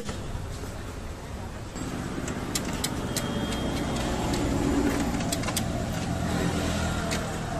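A car engine running close by, building to a peak about five seconds in and then easing off. A few light metallic clicks come from the pulling chain and clamp being handled.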